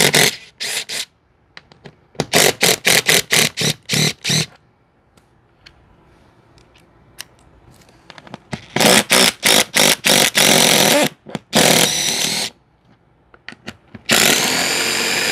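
Cordless impact driver with a socket, running in a string of short trigger bursts, then, after a pause, in longer runs of a second or two. It is backing armrest bolts out of a golf cart seat base of rotted wood.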